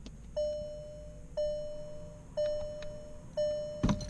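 Car's warning chime sounding four times, about once a second, in a 2017 Volkswagen GTI, followed by a sharp click near the end.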